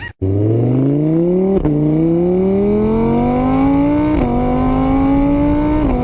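Motor vehicle engine accelerating hard through the gears: its pitch climbs steadily, then drops sharply at each of three gear changes, about one and a half, four and six seconds in.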